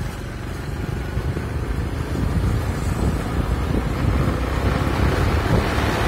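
Motorcycles riding along a road, their engines a low rumble under heavy wind buffeting on the microphone of the moving bike. It grows a little louder in the second half.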